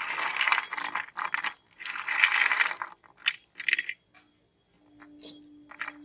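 Crunchy fish-shaped snack pieces rattling and clattering on a plate as hands scoop and pile them, in a few dense bursts over the first three seconds. Then a couple of short light clicks as single pieces are dropped, and it goes quiet.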